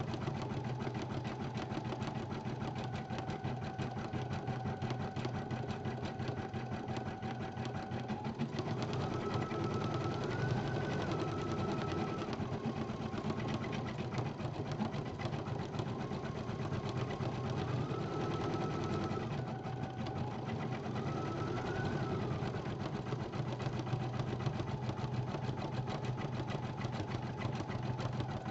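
Brother BP1530L embroidery machine stitching a design: a rapid, steady run of needle strokes with a whining tone that steps up and down in pitch a few times.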